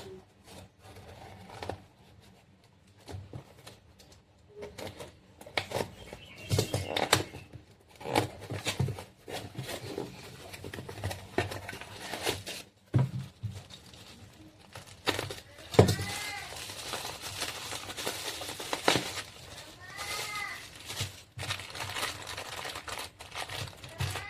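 Mechanical keyboard switches being pressed and handled: irregular sharp clicks, coming more densely after the first few seconds. Two short wavering tones sound among the clicks, about two-thirds of the way through and again a few seconds later.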